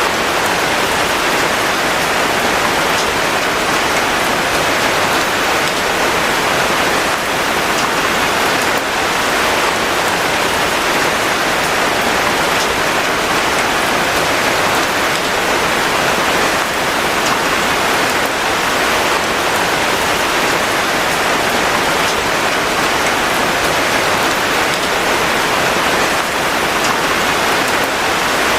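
Steady rain falling: an even hiss that does not change, with faint scattered drop ticks.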